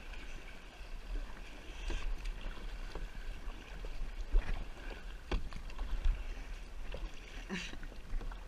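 Kayak paddling: a double-bladed paddle dipping and splashing on alternate sides of a plastic sit-on-top kayak, with a few sharp knocks, the loudest about halfway through, over a steady low rumble.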